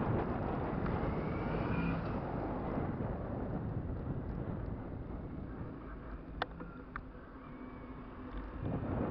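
Wind rushing over the microphone of a bike-mounted camera while riding, with tyre and road rumble beneath. It drops for a couple of seconds past the middle, with two short clicks, then picks up again near the end.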